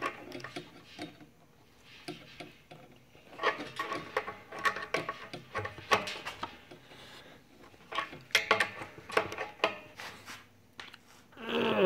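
Adjustable wrench clicking, clinking and scraping against a brass pressure relief valve as it is tightened into the air compressor tank, in irregular clusters of metallic clinks.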